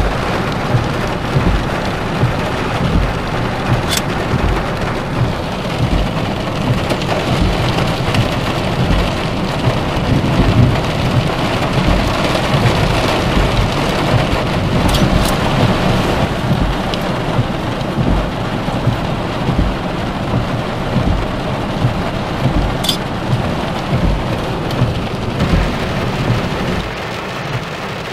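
Heavy rain pounding steadily on a car's roof and windshield, heard from inside the car, with a few sharp ticks of drops.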